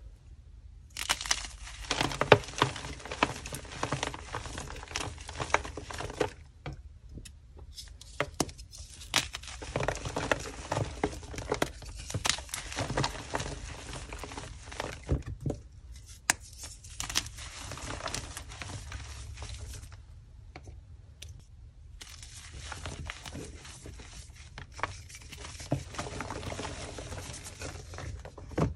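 Blocks of dyed gym chalk crushed and crumbled in the hands: a dense run of crunching and powdery crackling with sharp snaps. It starts about a second in and pauses briefly twice.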